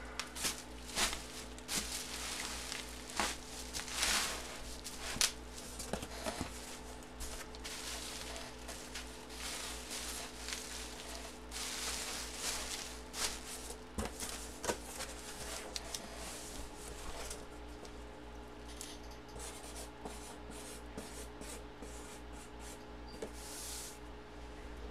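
Bubble wrap and a cardboard box being handled and rustled, in irregular scrapes and crinkles, turning to lighter scattered clicks and taps in the last few seconds. A steady low electrical hum runs underneath.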